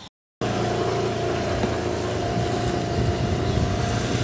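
Motor scooter riding slowly, its engine running with a steady high whine over a low rumble, with wind buffeting the microphone.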